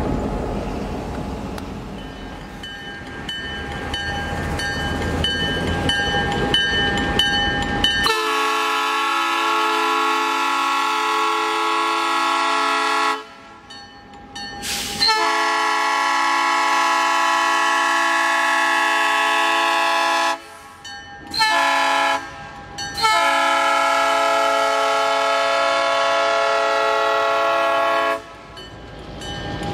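Air horn of a GP38-2 diesel locomotive sounding the grade-crossing signal: two long blasts, a short one, then a final long one, each a chord of several steady tones. Before the horn starts, the crossing signal's bell rings.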